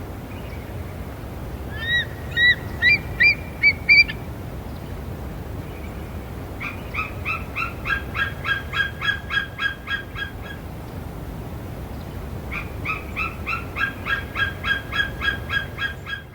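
Eagle calling: a run of about six short, high-pitched calls that each rise in pitch, then two long series of rapid, evenly spaced piping notes, each about four seconds long.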